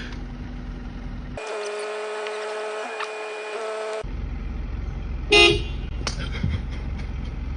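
A horn sounds one long steady blast of about two and a half seconds starting just over a second in, then one short, louder honk about five seconds in. A steady low rumble runs underneath.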